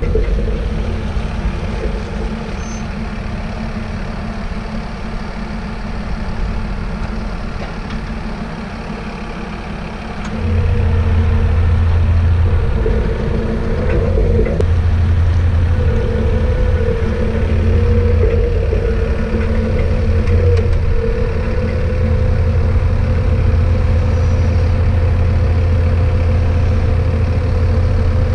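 Tractor engine running steadily, its low drone stepping up louder about ten seconds in and holding there.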